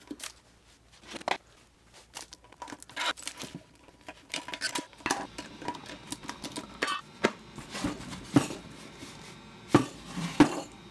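Metal end cap of a cardboard shipping tube being pried and pulled off with pliers and a screwdriver: an irregular run of metal clicks, scrapes and tearing paper and tape. Near the end the tube is slid off a solid steel bar, with a few louder knocks.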